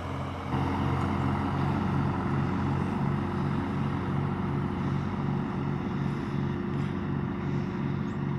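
Vehicle engine running steadily with an even throb, getting louder about half a second in.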